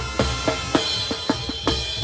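Mexican brass band (banda) playing live music, with a steady beat of bass drum, snare and cymbals; a high held note comes in a little under a second in.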